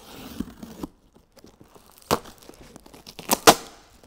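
Cardboard shipping box being opened by hand: packing tape slit and torn off with rustling cardboard, and sharp snaps about two seconds in and twice more, the loudest, near the end.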